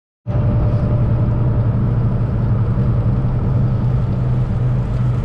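Semi truck driving along: a steady low engine drone with road noise, cutting in abruptly just after a brief silence.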